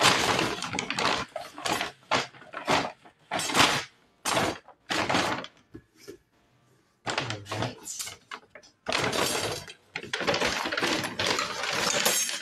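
Paper grocery bag crinkling and rustling in repeated irregular bursts as it is handled and pressed, with a brief lull about six seconds in and a longer stretch of rustling near the end.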